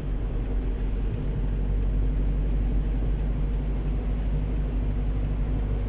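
Steady low rumble of road and wind noise inside the cabin of a moving car.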